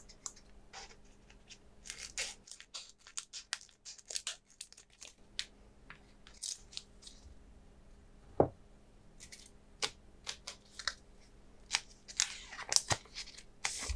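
Foil Pokémon booster pack wrapper crinkling and being torn open by hand, a run of scattered crackles and clicks with one sharp snap about eight seconds in.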